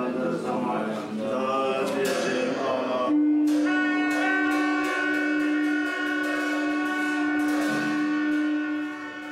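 Voices chanting, then a horn sounding one long steady note from about three seconds in, over light percussion strikes.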